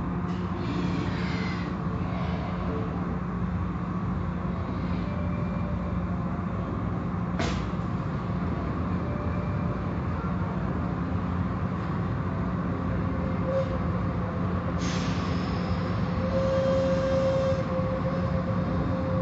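Automatic tunnel car wash machinery heard from inside a car: a steady low hum and rumble with water and foam spraying over the car. A sharp slap comes about seven seconds in, and a longer burst of spray hiss about fifteen seconds in.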